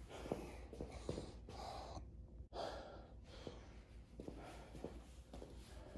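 Faint heavy breathing of a man winded from a workout, over a steady low room hum, with a few light taps.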